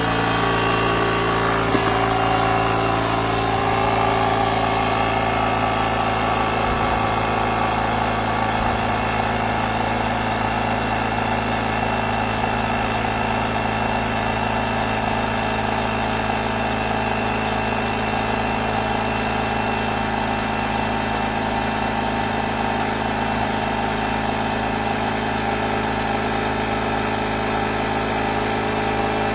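A small engine or motor running steadily, with an even hum and buzz that does not change.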